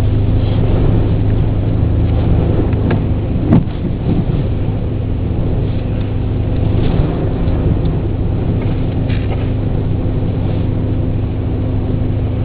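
Car engine idling steadily with a low hum, heard from inside the car, over a steady rushing noise of the storm. A single sharp knock about three and a half seconds in.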